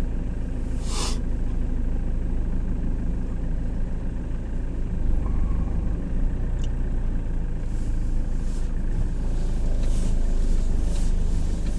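Iveco Daily's engine and road noise heard inside the cab, a steady low drone as it drives slowly. A short hiss sounds about a second in.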